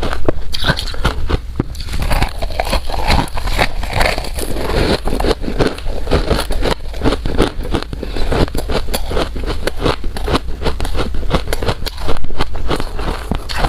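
Soft, powdery ice being bitten and chewed close to the microphone: a dense, continuous run of crisp crunches, many a second, with a louder burst of crunching about twelve seconds in.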